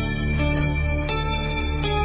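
Background music: a slow melody of held notes changing about every half second, over a steady low bass.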